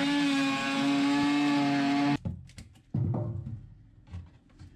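A power cutting tool running with a steady high whine and hiss, stopping abruptly about two seconds in, followed a second later by a knock.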